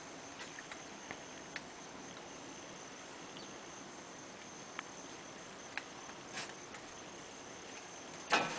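Small scattered clicks and ticks of a cat eating from a dish, over a faint steady hiss with a thin high insect-like drone. A louder knock near the end as the chained dog reaches down toward the dish.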